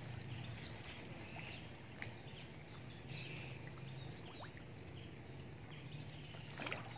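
Small splashes and plops on a pond surface as handfuls of fish feed are tossed in, the sharpest about two, three and near seven seconds in. Underneath is a steady low hum with faint high chirps.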